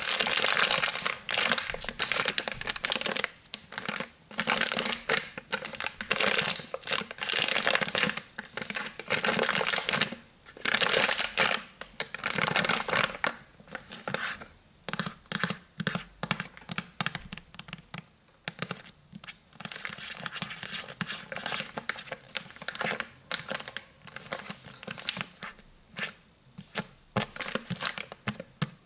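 Fingernails scratching and crinkling the soft plastic wrapper of a pack of disinfectant wet wipes, in stretches of rapid strokes with short pauses, turning to short separate scratches near the end.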